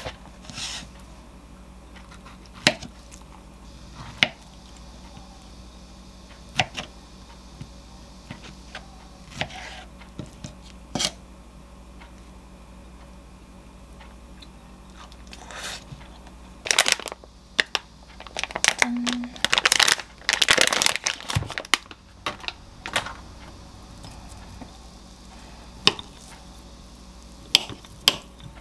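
A kitchen knife cutting peeled figs on a wooden board: scattered single knocks and clicks of the blade and the fruit being handled. A denser run of rustling and knocking comes about 17 to 22 seconds in.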